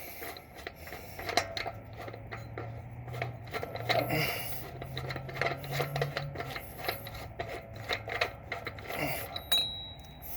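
Metal-on-metal scraping and irregular clicking as the spindle retaining nut of a 1989 Ford Bronco front hub is worked loose with a socket wrench.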